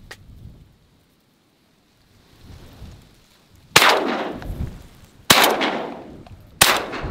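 Three shotgun shots fired at ducks flying over, about a second and a half apart, each a sharp crack followed by a short fading tail.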